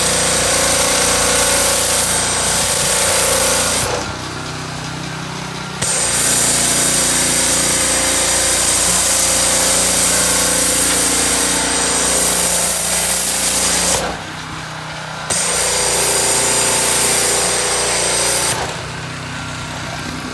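Pressure washer running and spraying soap through a foam cannon: a steady hissing spray over the machine's hum. The spray drops out briefly three times, about four seconds in, around fourteen seconds in, and near the end.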